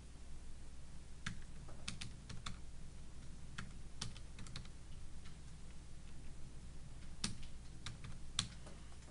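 Computer keys clicking in short, irregular taps as figures are entered, over a steady low hum.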